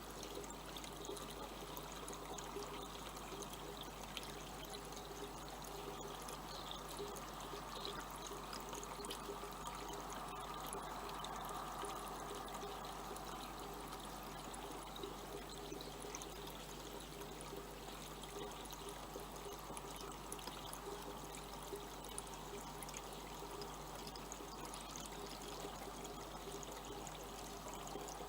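Steady rushing noise like running water, unchanging throughout, with a constant low hum underneath.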